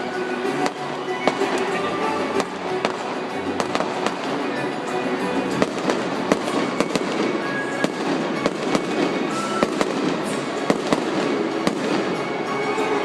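Fireworks display: shells bursting in rapid, irregular bangs and crackles, several a second, over a steady rumble.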